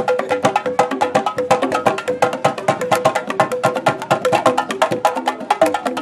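Percussion music: a fast, steady stream of sharp wooden clicks and knocks, several strikes a second, over short pitched drum notes.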